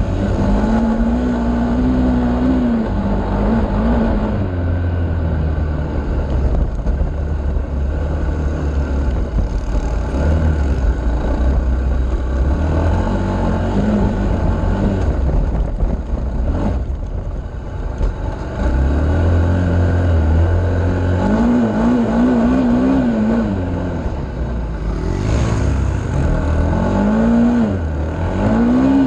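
Off-road vehicle engine running under throttle, its pitch rising and falling several times as it is revved and eased off, over a steady low rumble. A single sharp knock about two-thirds of the way through.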